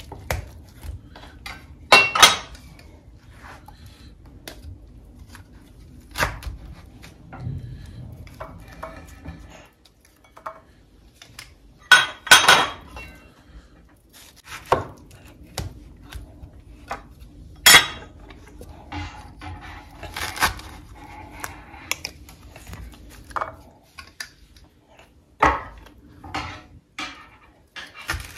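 Chef's knife cutting the skin off a pineapple on a wooden cutting board: irregular knocks and clacks of the blade against the board, with a few much louder strikes among them.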